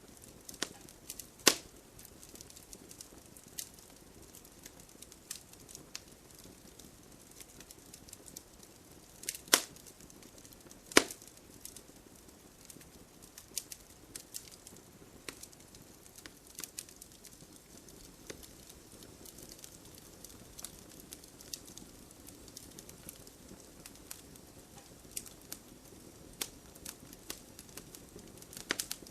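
Wood campfire crackling: irregular sharp pops and snaps over a faint hiss, with a few loud pops, about a second and a half in, around nine and a half and eleven seconds, and again near the end.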